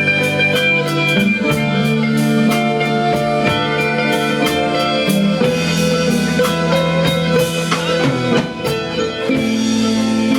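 Instrumental rock band music with electric guitar and a steady drum beat, before the singing comes in.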